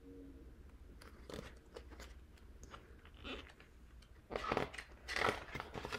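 Pages of a picture book being turned and handled: a series of soft paper rustles and crinkles, loudest from about four to five and a half seconds in.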